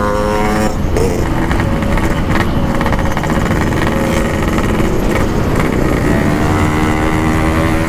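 Yamaha RX-King 135cc single-cylinder two-stroke engine running under way through a standard-style 'packing power' exhaust. The note breaks off briefly less than a second in, then holds steady again over a constant rushing noise.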